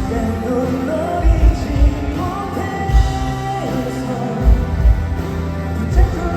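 Live band playing a pop-rock ballad, with kick drum beats and sustained guitar and keyboard lines.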